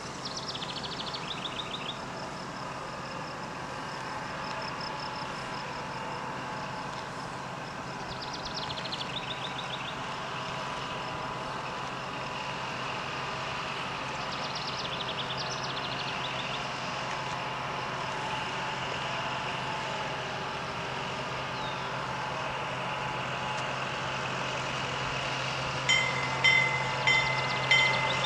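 Diesel locomotive approaching, its engine a low steady hum that slowly grows louder, with a few bird trills over it. Near the end the locomotive's bell starts ringing in sharp, even strikes about two every one and a half seconds.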